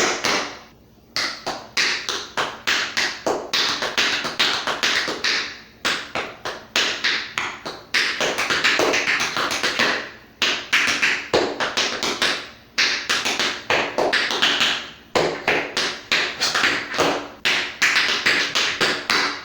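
Tap shoes tapping out a dance routine on a hard floor: quick runs of sharp metal clicks in phrases of about two seconds, with short pauses between them.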